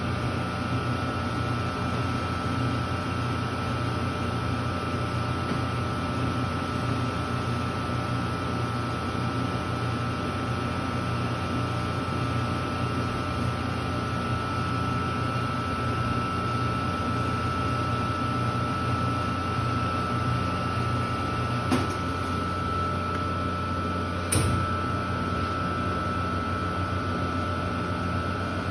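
Taylor C723 soft-serve ice cream machine running steadily: a constant hum with a higher steady tone above it. Two short sharp clicks, a couple of seconds apart, come in the last third.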